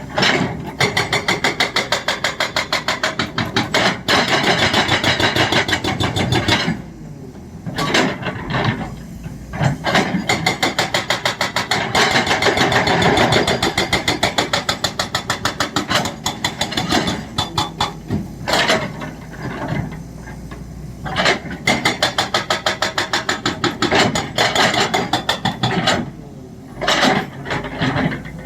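Excavator-mounted hydraulic breaker hammering rock in rapid, evenly spaced blows, several a second. The blows come in runs of a few seconds with short pauses between them, over the hum of the excavator's engine.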